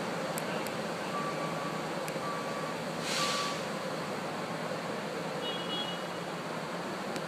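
Road construction machinery running with a steady noise. A reversing alarm beeps about once a second, three times, stopping a little over three seconds in, and a short hiss of air comes with the last beep.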